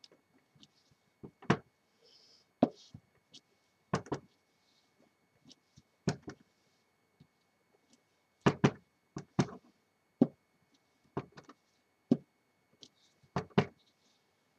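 Clear acrylic stamp block and hands knocking and tapping against card and the craft table while stamping: about a dozen short, irregular knocks, some in quick pairs.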